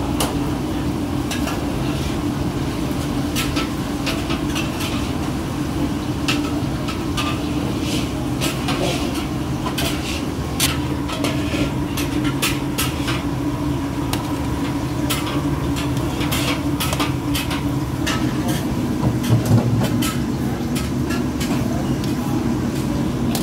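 Perforated steel skimmer scooping boiled cabbage out of a large wok of hot water and knocking against the wok and a stainless steel tray: irregular metal clinks and scrapes with wet splashing, over a steady low kitchen rumble.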